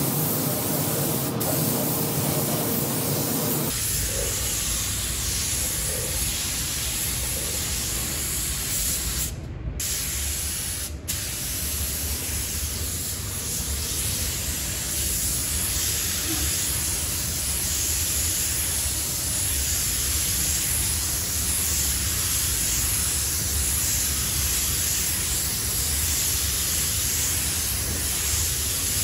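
Compressed-air gravity-feed paint spray gun hissing steadily as it sprays paint, with two brief breaks near the middle.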